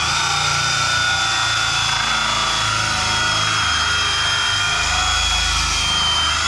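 Cordless drill spinning a hole saw, a steady high motor whine with cutting noise as the saw bites into the wall lining to gain clearance around the tap opening. It stops suddenly at the end.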